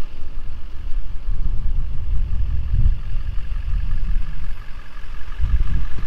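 Wind buffeting the microphone: an uneven low rumble that swells and dips, with a faint steady hum higher up.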